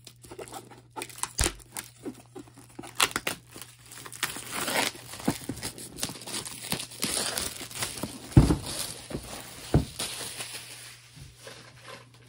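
Plastic shrink-wrap being torn and crumpled off a cardboard board-game box, a run of crinkling and tearing crackles. Two louder thumps from the box being handled come about eight and ten seconds in.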